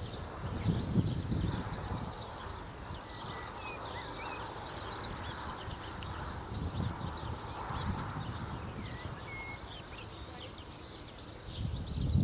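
Dense chorus of small songbirds chirping and twittering, with a few short whistled notes, over a low rumble that swells and fades a few times.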